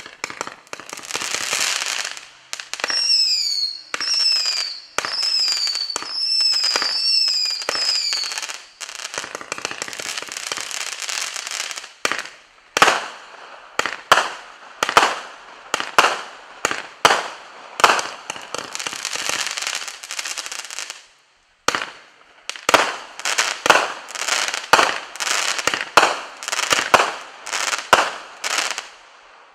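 Miracle Fireworks 'Evil Eye' 42-shot consumer cake firing its shots one after another: launches with several short falling whistles in the first few seconds, then crackling and sharp reports about one a second, the reports the loudest sounds. A brief pause comes about two-thirds of the way through.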